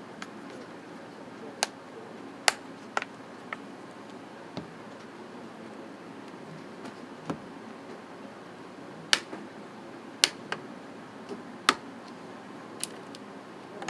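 Plastic clips of a Kindle tablet's back panel snapping loose one by one as a guitar pick pries around the edge: a dozen or so sharp, irregular clicks.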